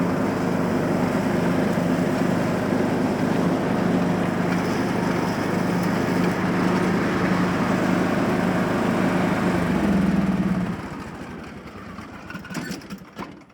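Lawn mower engine running steadily, then shut off about eleven seconds in, leaving only a few faint ticks.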